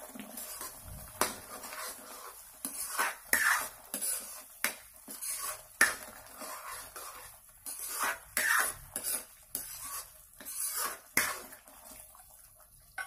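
A steel ladle stirring paneer cubes through gravy in a metal kadhai, clinking and scraping against the pan in irregular strokes that die away near the end.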